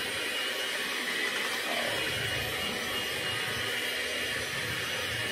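Electric hand mixer running steadily with a high motor whine, its beaters whipping cake batter in a glass bowl.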